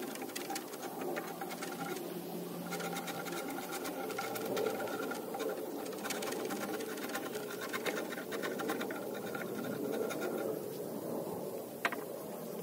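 A tool worked back and forth over the surface of a paulownia wood slab, making a rapid, continuous scratching. A single sharp knock comes near the end.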